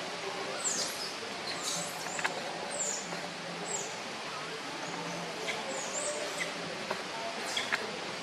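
Steady outdoor background noise with scattered short, high chirps, several of them sweeping downward in pitch, a few seconds apart.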